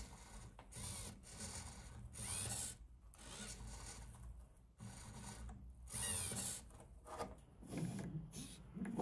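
Repeated short bursts of mechanical whirring and rubbing from a 3D-printed ABS clutch rig and its hobby servo being worked by hand, some bursts rising or falling in pitch. In the last second or so a lower, uneven running noise takes over.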